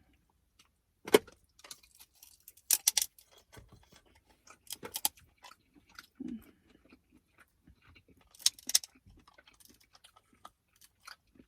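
Crab leg shells cracking and crunching as they are broken open, a few sharp cracks spaced out over several seconds, with quiet chewing in between.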